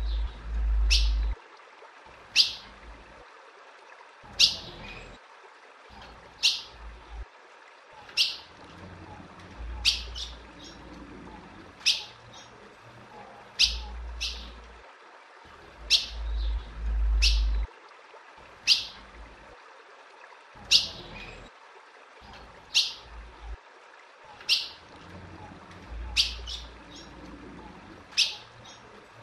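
Female ultramarine grosbeak (azulão) calling: short, sharp chip notes, each a quick downward sweep, repeated every one to two seconds and often in quick pairs. A low rumble comes and goes underneath.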